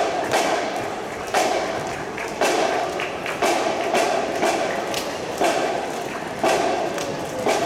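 Bass drum striking a steady beat, about one hit a second, each hit ringing briefly.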